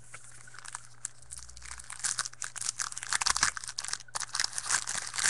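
Wrapper of a pack of baseball cards being torn open and crinkled. It is a dense, irregular crackle that starts about a second and a half in and grows louder.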